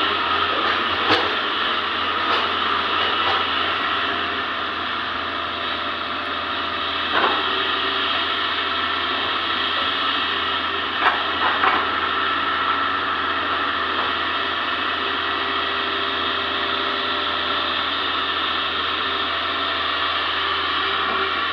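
Hitachi ZX200 excavator's diesel engine and hydraulics running steadily under work, with a few sharp knocks along the way.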